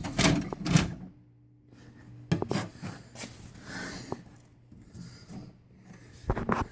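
Handling noise: rubbing and scraping with a few sharp knocks, over a faint steady low hum.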